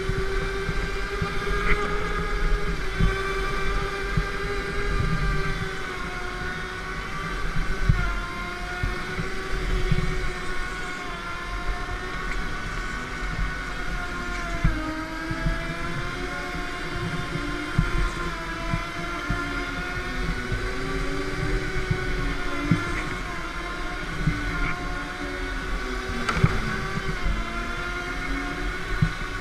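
Go-kart motor heard from onboard while lapping a track: a steady drone whose pitch dips through the corners and climbs again on the straights, with a few brief knocks.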